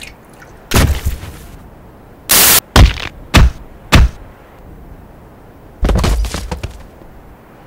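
Added sound-effect impacts of a brutal melee fight: a heavy thud about a second in, a short harsh burst, then three sharp whacks about half a second apart, and a longer crashing hit near the end, fitting claw-hammer blows.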